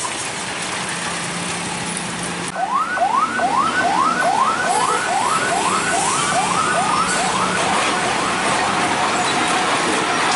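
A siren sounding in quick rising whoops, about two a second, over the running of passing truck engines. It starts abruptly about two and a half seconds in and fades away near the end.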